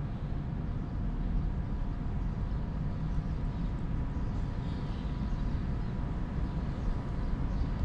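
Steady low outdoor rumble, like distant traffic or wind on the microphone, with a faint steady hum over it.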